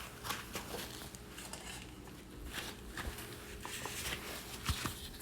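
Small metal hand tools being handled and moved about on a table: scattered light clinks, taps and rustling.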